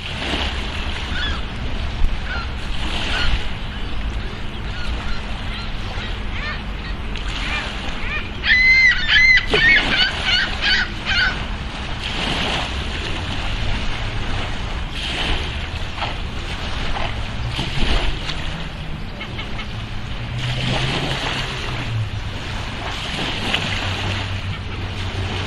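Outdoor ambience: a bird gives a quick run of loud, harsh calls about eight to eleven seconds in, over a steady wash of noise, with fainter calls scattered through.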